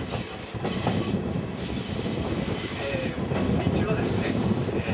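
Kiha 48 diesel railcar running along a curve, heard from an open window: steady rumble of wheels on the rails with some wheel squeal from the curve.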